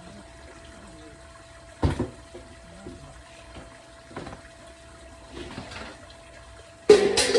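Scattered knocks and scraping from pots and soil being handled, with a loud clatter near the end, over a faint steady hum.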